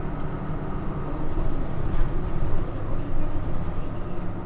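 Nissan Diesel JP city bus's diesel engine running steadily under way, heard from inside the cabin, with road and drivetrain noise.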